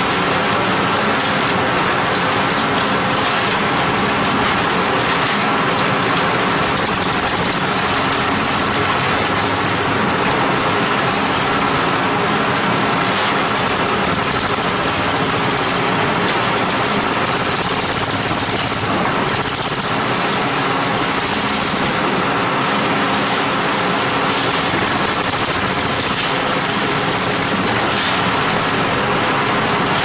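Concrete mixer with pump running steadily: a loud, even machine noise with a constant hum.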